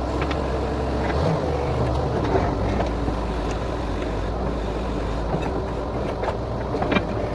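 Borewell drilling rig's engine running steadily with a low drone, its pitch rising slightly about a second in, and a few sharp knocks near the end.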